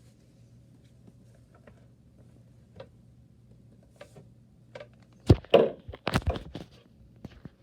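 Handling noise: scattered light clicks over a faint low hum, then a quick cluster of loud knocks and a brief rustle about five to seven seconds in.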